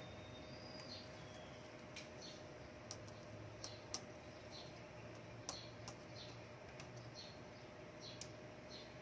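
Faint, scattered light clicks and taps as a Siamese cat in heat rolls and squirms on a laminate floor, with small high ticks between them. A faint steady hum runs underneath.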